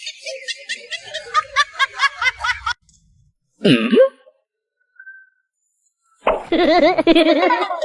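Two bursts of laughter, a comedy laugh sound effect: first a rapid, high-pitched cackle of about six pulses a second, then, after a brief sound sliding down and back up in pitch about three and a half seconds in, a lower laugh near the end.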